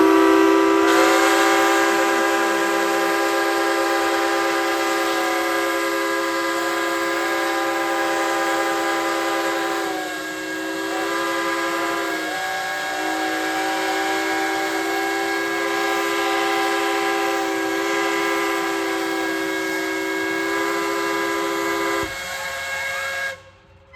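Steam whistles blowing a long, steady multi-note chord for the noon lunchtime whistle, the pitch sagging briefly about ten seconds in. The chord drops out near the end, leaving a single tone that then cuts off.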